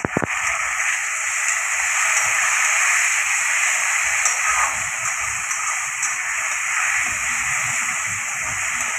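Sliced onions and spice masala sizzling in hot oil in a steel kadai while being stirred with a metal spatula: a steady frying hiss, with a couple of sharp knocks right at the start.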